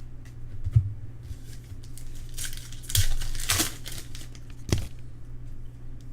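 A trading-card pack wrapper being torn open and crinkled, a rustling tear lasting about a second and a half, with a sharp knock just before it and another just after.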